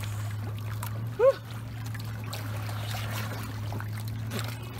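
Water trickling and splashing over a steady low hum, with a brief loud vocal cry that rises and falls in pitch about a second in.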